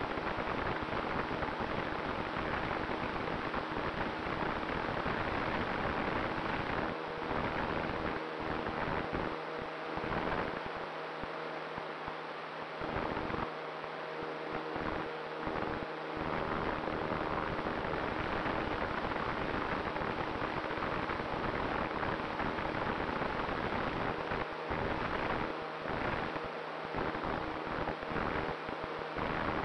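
Airflow rushing over the onboard camera of a Multiplex Cularis RC motor glider in flight: a steady rushing noise with a faint hum underneath, the low rumble easing at moments in the middle and near the end.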